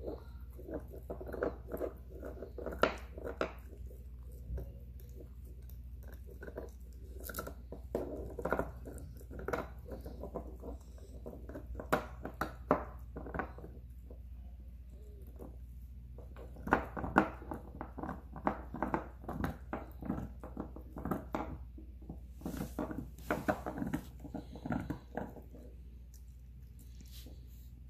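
A Chihuahua–fox terrier puppy gnawing a Nylabone chew stick: irregular clicking and crunching bites of teeth on the hard chew, in clusters, with a pause about halfway through and another near the end.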